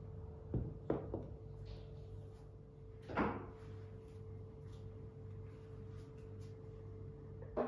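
Ceramic plant pots being set down on a table: a few light knocks about half a second to a second in, a louder one about three seconds in and another near the end, over a steady low hum.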